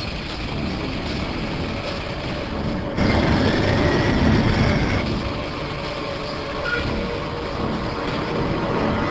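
Road vehicle noise with engine rumble and traffic. It jumps suddenly louder about three seconds in and eases about two seconds later, with a faint high tone between.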